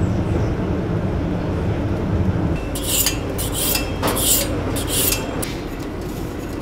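Long doner knife being sharpened on a steel: about five quick metal-on-metal scrapes in the second half, roughly two a second, over a steady low rumble.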